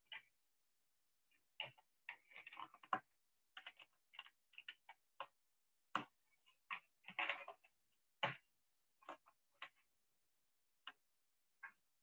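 Faint clicking and tapping of computer keyboard keys: irregular single clicks and quick clusters with short silences between, thinning out near the end.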